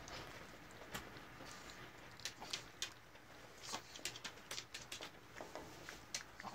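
Mini Rex rabbit eating mashed pumpkin from a small cup: faint, irregular quick clicks of chewing and licking.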